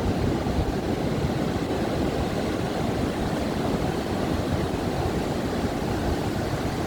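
Ocean surf washing onto a sandy beach: a steady, low wash of breaking waves with no single wave standing out.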